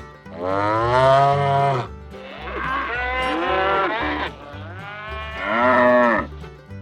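Cattle mooing: three long moos, each rising then falling in pitch, over background music with a low pulsing beat.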